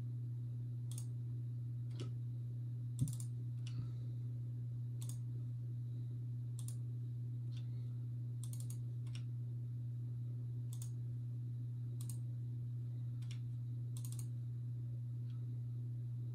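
Computer mouse clicking: scattered short, sharp clicks, single and paired, roughly one a second, over a steady low hum. One duller, louder knock about three seconds in.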